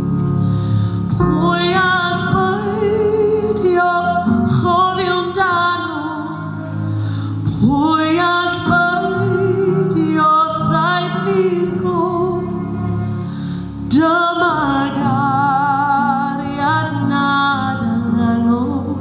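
Music: a woman singing a slow melody in long held notes with vibrato, over a steady instrumental accompaniment.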